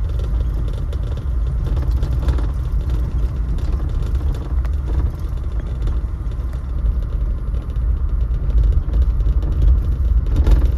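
Low road rumble and engine noise inside a moving car's cabin as it drives over a rough, unpaved gravel road, with faint scattered rattles.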